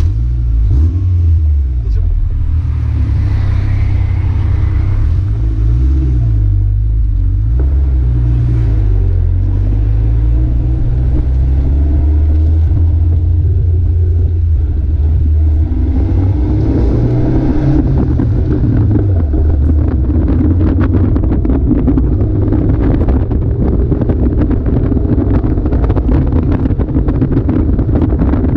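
Caterham Super 7's engine accelerating away through the gears, its note rising and dropping back at each shift, heard from the open cockpit. Wind and road noise grow as speed builds in the second half.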